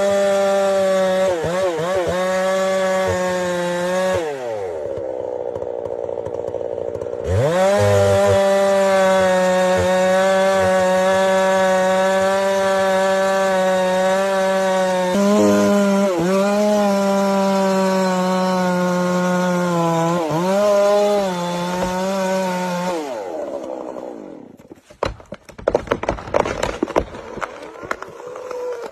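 Chainsaw engine running at full throttle through a cut, its pitch sagging and recovering as the chain bites into the wood. It drops to idle for a few seconds, revs back up to cut again, and is throttled down about 23 s in. It is followed by a run of sharp cracks and thumps.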